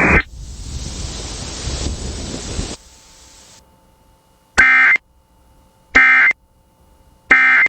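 Radio hiss that fades out after nearly three seconds, then the Emergency Alert System end-of-message signal: three short, loud bursts of warbling digital data tones, about 1.4 seconds apart, marking the end of the alert.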